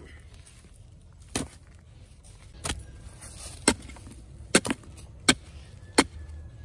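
A hand-held digging tool stabbing into red clay soil, about eight sharp thuds that come closer together as the digging goes on.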